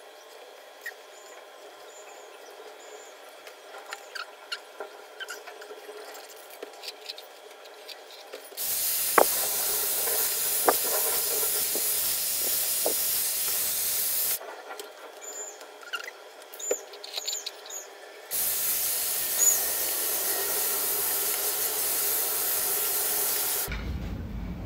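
Dyson Airwrap with the smoothing brush attachment blowing air: a steady rush of airflow switched on about nine seconds in for about six seconds, off for about four, then on again for about five seconds. Light clicks and rustles of hair being handled come in between.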